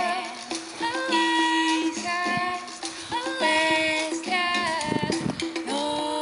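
Background music: an upbeat song with singing over a rhythmic accompaniment.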